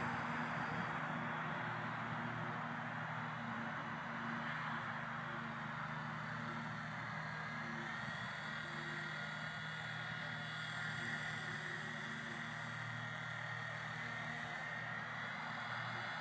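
WLToys V911 RC helicopter flying, its small electric motor and rotor giving a steady whirring whine that shifts slightly in pitch a few times, over a steady hiss of light wind on the microphone.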